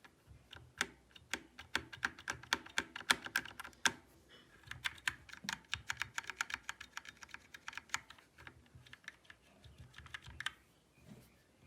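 Typing on a computer keyboard: rapid, uneven key clicks with a short pause about four seconds in, becoming sparse near the end.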